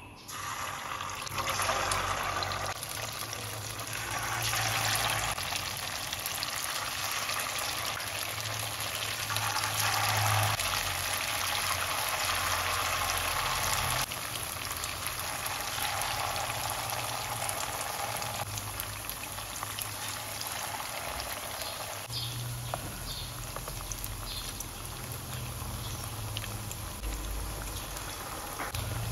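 Shrimp and tofu patties deep-frying in hot oil in a wok: a steady sizzling and bubbling hiss that starts about a second in, as the first patty goes into the oil.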